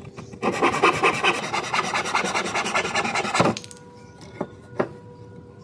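Japanese-style handsaw cutting across a wooden board in rapid, even strokes for about three seconds, stopping once the piece is cut through. Two light knocks follow.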